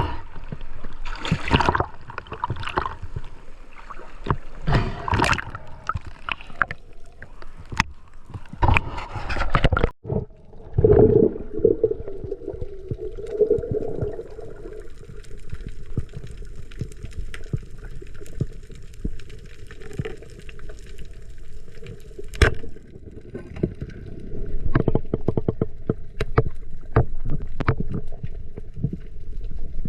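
Water sloshing and gurgling around the camera in the sea, in uneven surges, with many scattered sharp clicks after a break about a third of the way in.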